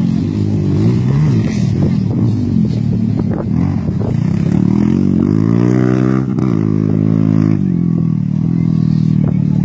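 Quad bike (ATV) engine running hard under acceleration across sand; its pitch climbs steadily from about four seconds in, drops sharply just after six seconds, and then holds.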